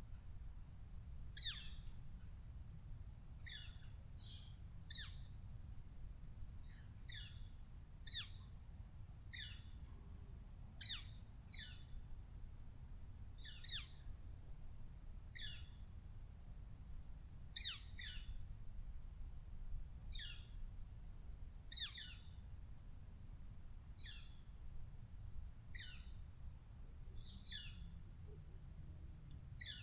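Bird calls: short, high chirps, each a quick downward sweep, repeating about once every second or so over a low, steady background rumble.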